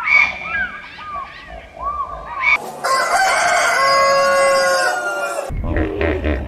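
A rooster crowing once, one long cock-a-doodle-doo lasting about three seconds in the middle. Before it come short chirping calls, and near the end a deep rumbling sound starts.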